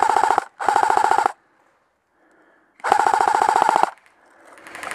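Airsoft rifle firing three short full-auto bursts, each a rapid, even rattle of shots over a steady whine. A rising hiss-like noise builds near the end.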